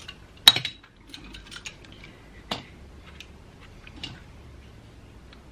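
Sharp metallic clinks and small clicks of metal pipe fittings and a pressure gauge being handled and screwed together by hand. The sharpest clink comes about half a second in, with others near the middle and about four seconds in.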